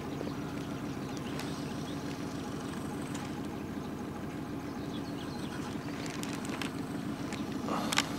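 A boat's outboard motor running at a steady pitch while under way, a constant drone with no change in speed. A short sharp knock near the end.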